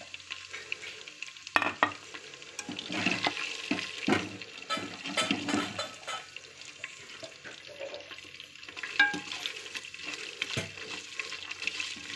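Whole spices (bay leaves, star anise, cumin and fennel seeds) sizzling and crackling in hot oil in a metal pressure cooker. A spoon stirs them and now and then knocks against the pot, giving scattered clinks.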